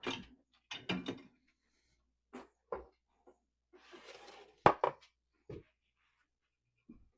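Dishes being loaded into a dishwasher: a scattered series of clinks and knocks as items are set into the racks, with a brief scrape about four seconds in and two sharp knocks just after it that are the loudest.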